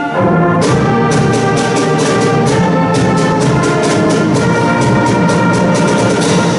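School concert band playing a full-band passage, brass and woodwinds holding chords that swell louder at the start, with percussion striking in a steady rhythm from about half a second in.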